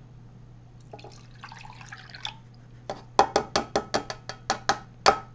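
Skim milk poured from a plastic measuring cup into a saucepan. A soft pour comes about a second in, then near the end a quick run of sharp liquid plinks, about six a second.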